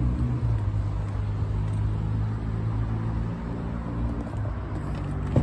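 Ford Transit van's diesel engine idling, a steady low hum. A short knock near the end.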